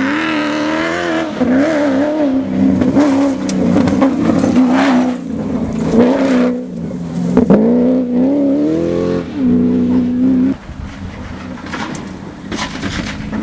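Off-road rally car engine revving hard, its pitch climbing and falling back repeatedly with throttle and gear changes. About ten and a half seconds in the sound drops sharply and goes on more faintly.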